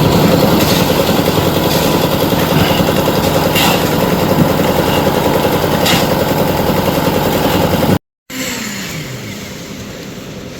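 An engine running steadily at a constant speed. About eight seconds in, the sound drops out for a moment and comes back quieter, with a tone sliding down in pitch.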